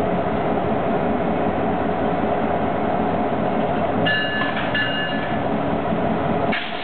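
Canadian Pacific diesel locomotives running, a steady engine drone. About four seconds in, a high-pitched squeal sounds twice briefly. A sharp click comes near the end as the sound drops a little.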